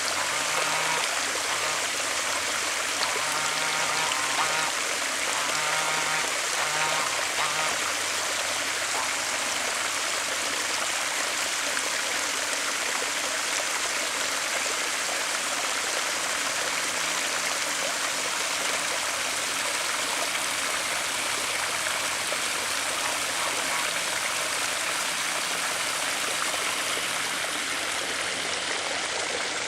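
Water running over a pond spillway, a steady, even rush of flowing water.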